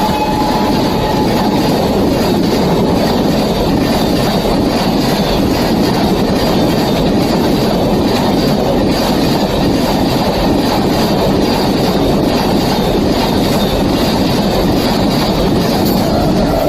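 Rajdhani Express train passing through a station at speed: a loud, steady rush of coaches and wheels on the rails, with the last of its horn fading out in the first second.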